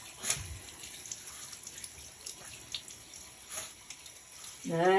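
Water spraying steadily from a handheld shower sprayer onto a wet small dog in a bathtub, with a few faint splashes and clicks.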